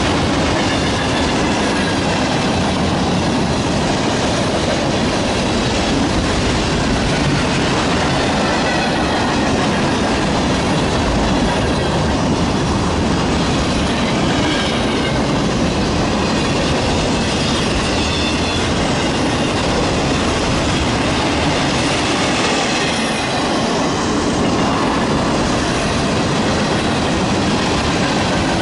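Freight cars of a long mixed freight train (tank cars, covered hoppers, boxcars) rolling past close by: a loud, steady noise of steel wheels on rail, with faint high-pitched wheel squeals now and then.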